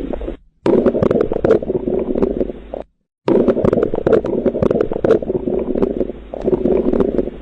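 Recorded abnormal bowel sounds from an abdomen as heard through a stethoscope: loud, busy gurgling with many short crackles, in separate clips cut apart by brief silences about half a second and three seconds in.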